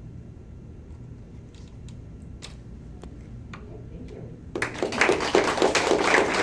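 Quiet room tone with a few faint ticks, then about four and a half seconds in a small audience breaks into applause, many hands clapping.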